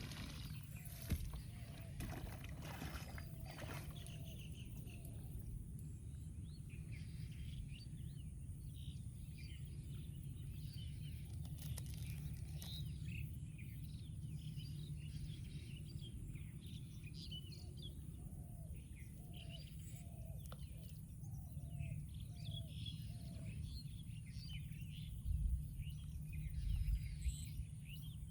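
Rural outdoor ambience: many small birds chirping throughout over a steady low rumble of wind. In the middle comes a run of about eight short, lower repeated calls, and near the end a few louder low thumps.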